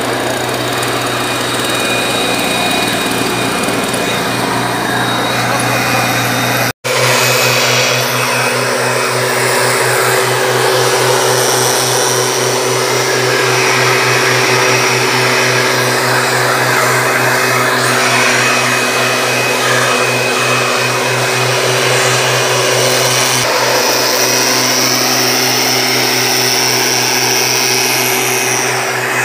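STIHL backpack mist blower's two-stroke engine running steadily at high speed, with air rushing out of the blower tube as it sprays weed killer. The sound drops out for an instant about seven seconds in.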